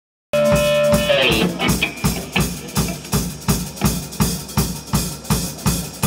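Live rock band with the drum kit to the fore: a held note slides down about a second in, then the drums keep a steady beat of about three strokes a second, bass drum and snare.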